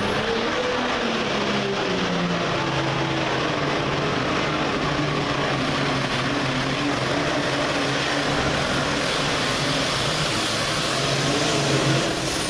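A 9,200 lb super farm class pulling tractor's turbocharged diesel engine running flat out as it drags the weight-transfer sled down the track. The engine note is steady and loud throughout, growing a little louder just before the end.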